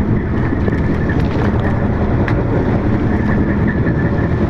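Charter fishing boat's engine running steadily, a low even rumble.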